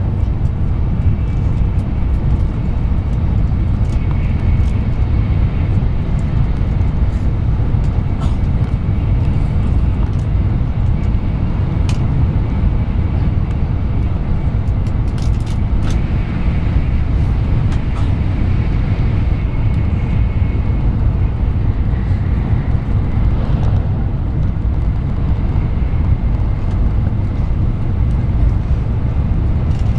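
Steady low rumble of a train in motion, heard from inside the passenger car.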